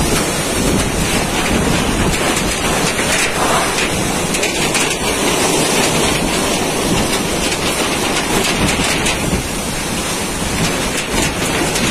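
Typhoon-force wind and heavy driving rain: a loud, steady, dense rushing noise with slight swells and dips.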